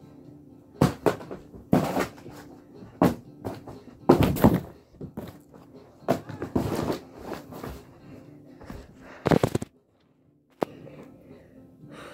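A string of irregular thuds and knocks, as of heavy objects being thrown and landing on a carpeted floor, some louder and sharper than others. The sound cuts out completely for a moment near the end.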